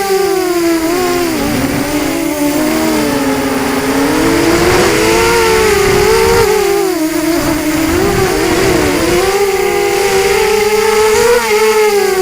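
FPV quadcopter's electric motors and propellers whining, the pitch dipping and rising again and again as the throttle changes, with wind rumbling on the microphone.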